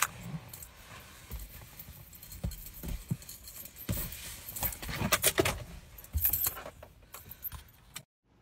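Phone handling noise: a run of clicks, knocks and rustles as the phone is moved about against clothing, loudest in the middle. It cuts to silence just before the end.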